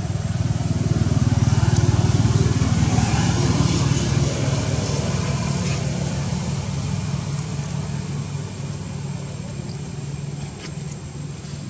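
A motor vehicle's engine passing by, growing louder to a peak about two seconds in and then slowly fading away.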